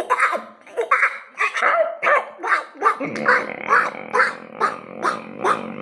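A man imitating a flock of clucking, cackling hens with his voice, in quick pitched calls about two or three a second. A low steady hum joins underneath about three seconds in.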